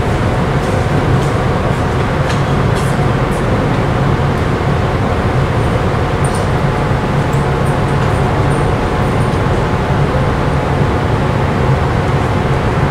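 Steady low drone of ship engines and distant port machinery, running evenly with a faint hum of a few held tones over it.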